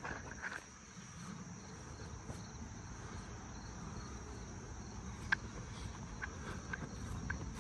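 Steady high-pitched insect trilling, with a few short sharp clicks in the second half.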